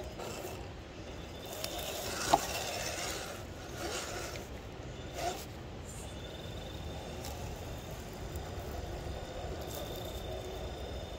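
Scale RC rock crawler on a Power Hobby 10.2 chassis climbing a boulder: its small electric motor and drivetrain whir while the tires scrabble and scrape on the rock. A sharp knock comes about two and a half seconds in.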